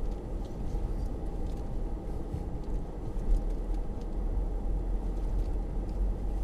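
Low rumble inside the cabin of a Mercedes-Benz GL-Class crawling over a bumpy dirt track, with a few faint knocks and a louder bump about three seconds in.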